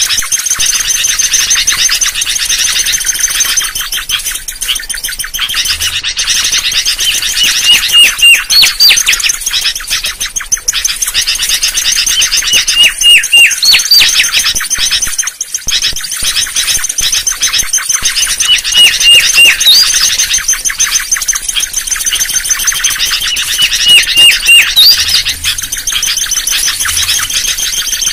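Mangrove whistler song: series of clear whistled notes, each phrase ending in a sharp upward-swept note, repeated about every five to six seconds over a constant chatter of other bird calls.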